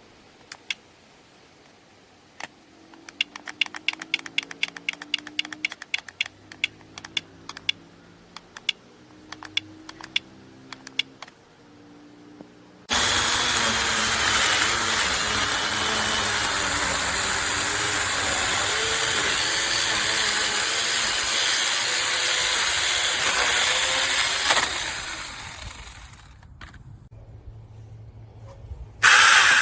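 A battery mini chainsaw starts suddenly about thirteen seconds in, runs steadily for about twelve seconds, then dies away; a short loud burst of it comes again near the end. Before it starts there is a run of faint, rapid clicking.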